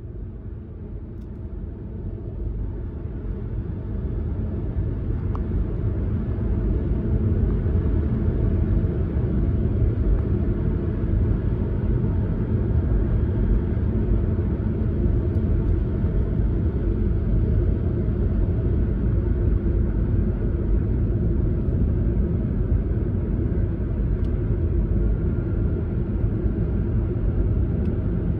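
Road noise of a moving car heard from inside the cabin: a steady low rumble that grows louder over the first six seconds or so, then holds level.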